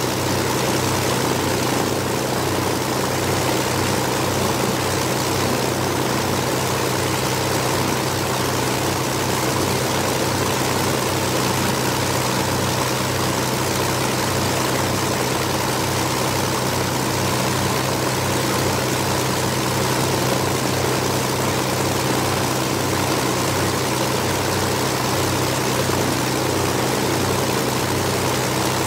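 Two Rolls-Royce Merlin V-12 engines of a de Havilland Mosquito idling steadily on the ground, with an even low throb.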